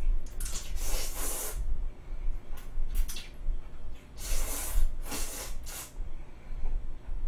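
A person slurping sauced spaghetti noodles: several separate hissing slurps, the longest about a second in and about four seconds in, with shorter ones between and after.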